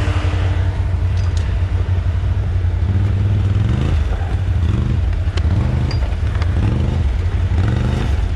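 ATV engine running, then revving up and back down in four or so surges from about three seconds in, as the quad works to get through ground it is sinking into.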